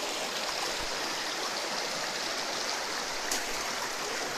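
Shallow stream water running steadily over small rock steps, a continuous rushing and splashing.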